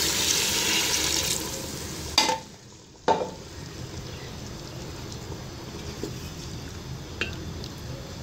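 Water poured into hot oil and fried beef in a pressure cooker, hissing and sizzling loudly. The sizzle cuts off abruptly about two seconds in after a knock, then settles into a quieter steady sizzle with a few light clicks.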